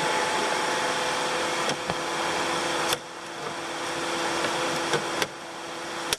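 Rivet gun setting a long steel rivet: a steady hissing run with a few sharp clicks, dipping briefly about halfway through and cutting off suddenly at the end as the rivet sets.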